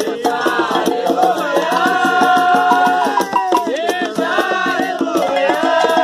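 An Umbanda ponto sung over a hand-played conga-style drum, with a shaker rattling along in a steady fast beat.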